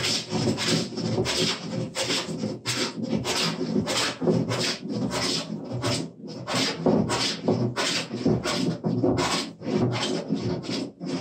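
Wooden jointer plane taking shavings off a wooden workbench top in quick, short strokes, about three a second, each a rasping hiss of the iron cutting; a brief break about six seconds in. The bench top is being flattened, its high spots planed down.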